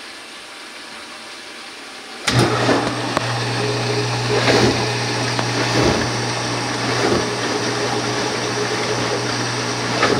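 A kitchen appliance's electric motor switches on about two seconds in and runs with a steady low hum, mixed with water noise.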